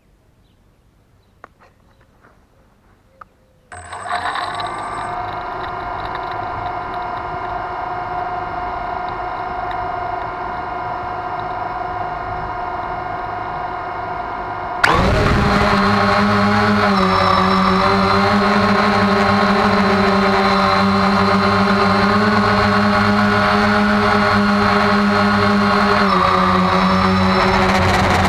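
Quadcopter drone's electric motors and propellers. After a few faint clicks the motors spin up about four seconds in and idle with a steady whine. About fifteen seconds in they jump to a much louder, fuller buzz as the drone lifts off and climbs.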